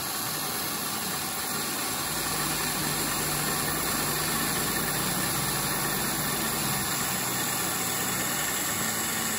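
Half-inch carbide end mill in a CNC knee mill taking a light finish (spring) pass along a keyway slot in 1018 steel: spindle and feed running steadily, a hum under a hiss of cutting noise.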